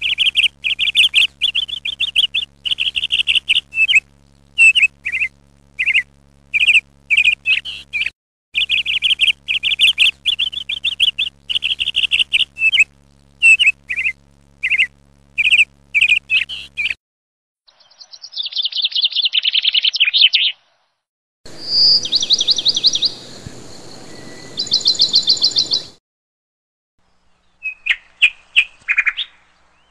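Bird chirps and calls: rapid repeated high chirps for about the first half, then, after short silences, a buzzy trill, a separate run of trilled whistles and a brief last burst of chirps.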